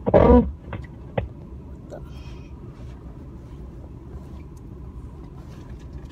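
Steady low rumble of a moving car heard from inside the cabin. Near the start comes a short, loud, growl-like vocal outburst from someone in the car, followed by a couple of sharp clicks within the next second.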